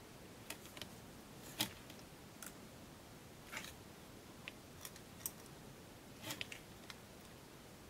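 Faint, irregular small clicks and scrapes of test-meter probe tips touching capacitor leads on a circuit board, about a dozen, the sharpest about one and a half seconds in.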